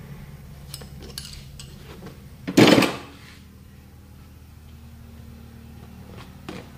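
A few light metal clicks from pliers on a tyre's inner tube, then one loud metallic clatter about two and a half seconds in as the tool is put down, with a smaller knock near the end. A steady low hum runs underneath.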